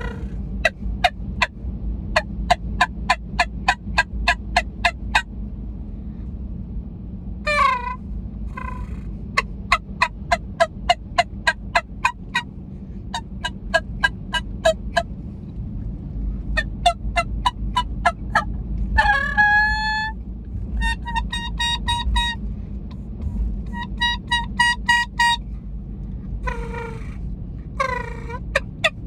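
Turkey sounds blown on a 3D-printed tube call: runs of short, sharp cluck-like notes about three or four a second, a few falling yelps, and, about two-thirds of the way in, several longer quavering notes.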